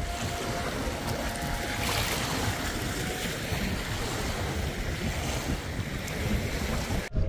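Wind rushing over the microphone with water lapping and splashing around a small boat on the lake, a steady noisy rush that breaks off abruptly near the end.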